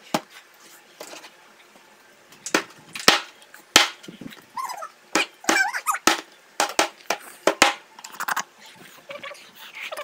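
Cleaver chopping through fried chicken on a cutting board: a dozen or so sharp, uneven chops at an irregular pace.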